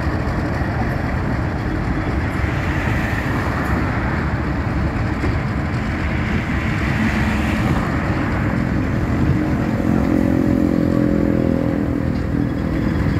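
ALCO RSD16 diesel-electric locomotive running under load as it pulls a train of empty mineral hopper wagons, with the wagons rolling past close by. A steady droning tone rises out of the noise about nine seconds in and fades near the end.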